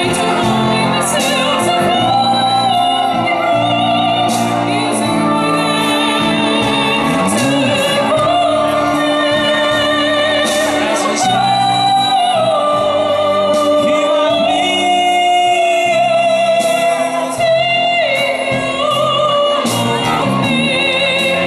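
A female soloist singing a high, operatic-style melody with wide vibrato, accompanied by a live symphony orchestra with strings.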